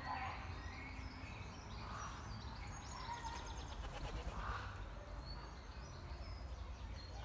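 Small birds chirping and twittering on and off over a low, steady rumble of outdoor background noise.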